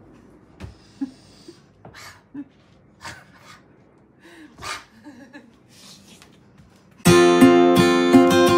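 Faint, scattered short sounds, then strummed acoustic guitar music starts abruptly about seven seconds in and carries on.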